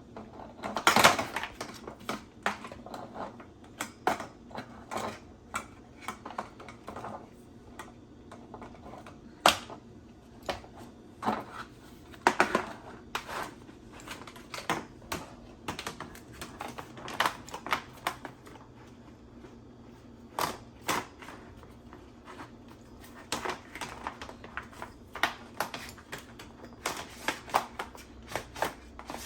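Parts of an under-sink organizer, its rods and braces, being handled and fitted together: irregular clicks, taps and knocks of hard parts. A louder clatter comes about a second in.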